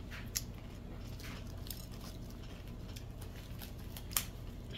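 Sticky rice being squeezed and kneaded by hand: faint soft squishes over a steady low hum, with two sharp clicks, one about half a second in and one near the end.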